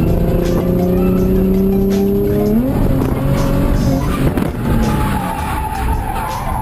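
Nissan 350Z's 3.5-litre V6 held at high revs, its pitch jumping up sharply about two and a half seconds in, followed by tyres squealing and skidding.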